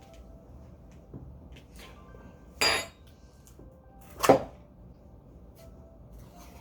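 Tableware clattering twice, about a second and a half apart, the second one sharper and louder.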